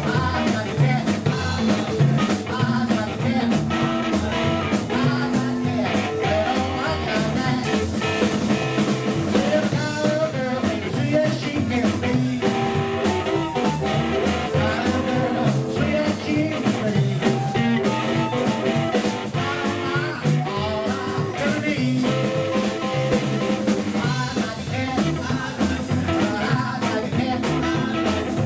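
Live blues band playing a rock 'n' roll number: hollow-body electric guitar, upright double bass, a drum kit and a male lead vocal, with harmonica.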